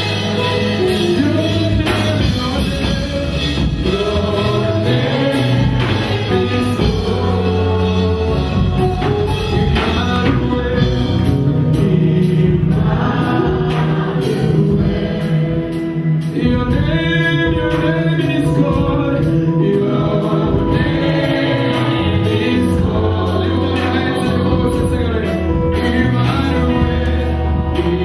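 Live gospel worship singing: a male lead singer with a group of backing singers over band accompaniment with a steady beat.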